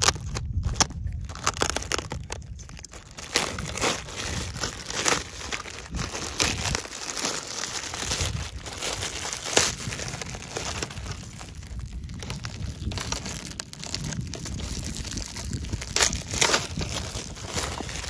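Clear plastic packaging bag crinkling and tearing as it is pulled off a toy loader by hand, with many irregular sharp crackles.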